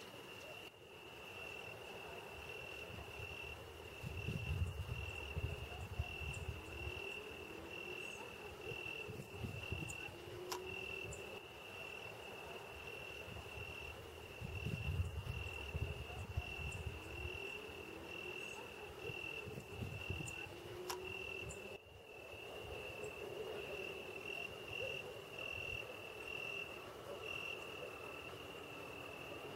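Crickets trilling, one steady high continuous chirring, with a few faint short rising calls underneath. Low rumbles swell briefly about 4 seconds in and again about 15 seconds in.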